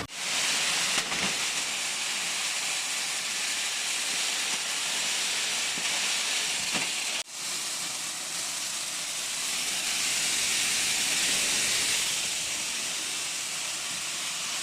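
Shelled corn kernels pouring from a combine's grain tank down into a truck: a steady hiss, with one brief break about seven seconds in.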